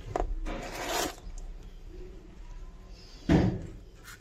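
Handling noises while turtle food pellets are dropped into the tank: a click, a short rustling rattle about half a second in, and a louder knock a little past three seconds in.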